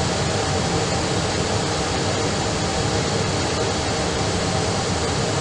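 Steady, even cabin noise of an Airbus airliner taxiing, heard from inside the cabin, with its jet engines running at low power.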